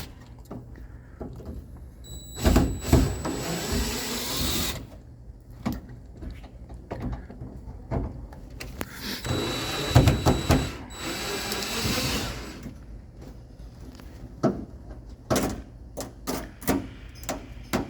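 Cordless drill-driver running in two bursts of two to three seconds each, backing out the Phillips screws that hold a car's window sweep trim. A string of short clicks and knocks follows near the end.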